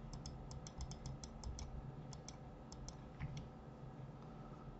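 Faint, light clicking of a computer mouse and keyboard at a desk, in short quick runs of clicks with pauses between, over low room noise.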